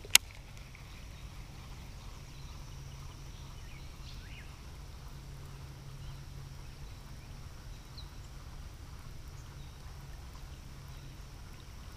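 A single sharp click just after the start as the baitcasting reel is engaged after the cast. Then quiet open-air background with a faint steady high hiss and a few faint short chirps.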